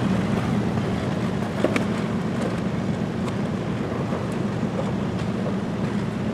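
Four-wheel-drive vehicle's engine running steadily at low revs, with a few light knocks over it.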